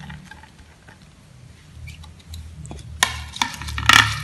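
Lead tree (petai Cina) seeds slid off a plate into a stone mortar of ground chilli paste and mixed in: faint pattering and scraping at first, then sharp scrapes and clicks about three and four seconds in, the loudest near the end.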